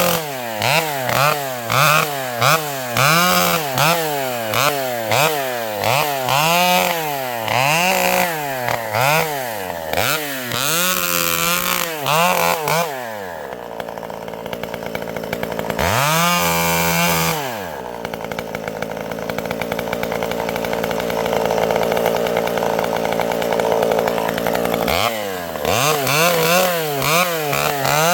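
Vintage Pioneer chainsaw with a governed carburettor running, its engine speed rising and falling in an even rhythm about once a second. About halfway through it settles into a lower, steadier run for several seconds, with one swing up and back, and near the end the rhythmic surging starts again.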